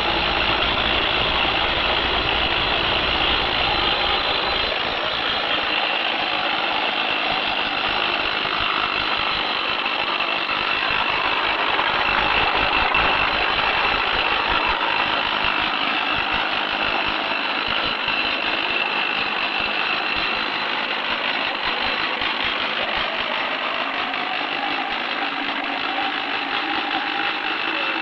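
Handheld hydraulic rock drill running, a steady loud mechanical din with a rapid hammering texture.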